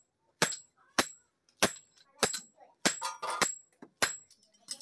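Hand hammer striking a red-hot iron meat-cleaver blank on an anvil block: about seven sharp, ringing blows a little under two a second, which stop near the end.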